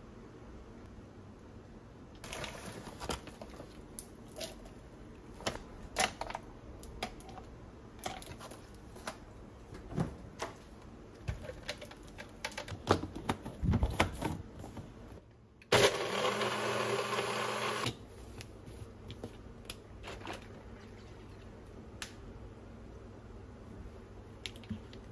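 Spoon clinks and scrapes and ingredients knocking into a plastic personal blender cup for several seconds. Then a personal bullet-style blender runs steadily for about two seconds and cuts off suddenly, blending a blueberry protein shake.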